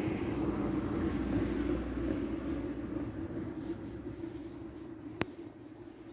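Noise of a passing vehicle fading away over a steady low hum, with one sharp click about five seconds in.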